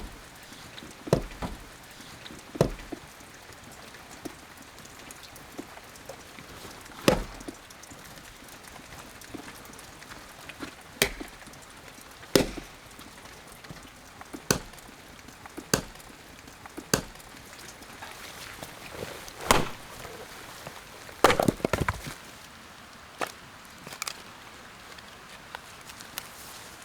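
Wood being chopped, likely kindling for a stove: about a dozen sharp strikes at irregular intervals, with a quick flurry of blows about three quarters of the way through, over a steady soft hiss.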